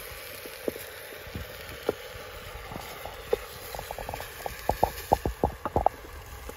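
A cooking spoon knocking and scraping against a metal pot of green bananas as they are stirred: a few single knocks, then a quick run of them about four seconds in, over a steady hiss.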